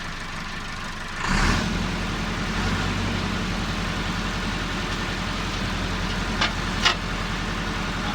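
A vehicle engine running at idle, then picking up speed about a second in and running steadily at the higher speed. Two sharp clicks about half a second apart come late on.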